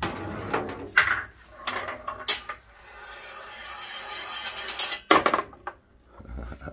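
A handful of mixed-size metal slingshot ammo balls clattering into a metal cabinet catch box and rolling down an angled shelf into a ball sorter, rattling as they run along it and drop into the sorting bins. A loud burst of clatter comes about five seconds in.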